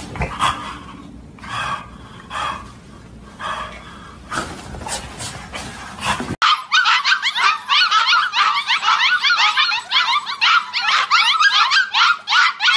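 A small dog gives a few short vocal bursts. About six seconds in, a litter of young puppies takes over, squealing and whimpering in a dense chorus of rapid, overlapping high cries.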